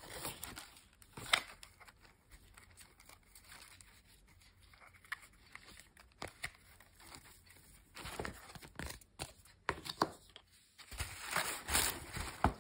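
Paper shopping bag and its ribbon being handled and untied: light rustling and crinkling with scattered small clicks, a sharper one about a second in. It is quieter for a while, then a run of louder rustles comes in the last few seconds.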